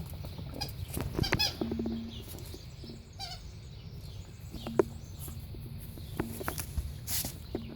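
Squeaky dog toy squeaking in short quick series as a Pekingese chews on it, with scattered clicks and taps.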